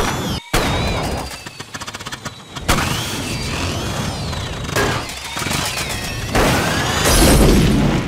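Cartoon sound effects of a runaway jetpack crashing: a sharp bang, a spell of rapid crackling, then a run of loud crashes and explosions with shattering and a wavering whine, loudest near the end.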